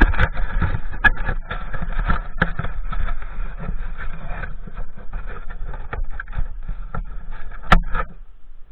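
Strong wind buffeting a camera microphone, a heavy rumbling rush with irregular knocks and rustling from the camera and windsurf rig being carried; it dies down sharply near the end.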